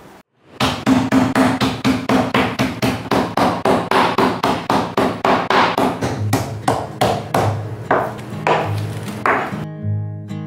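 A kitchen knife chopping rapidly, about five strokes a second. Near the end the chopping stops and acoustic guitar music comes in.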